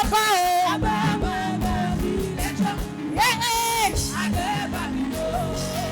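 Live gospel praise-and-worship music: a band playing, with a lead voice and singers holding and sliding sung notes.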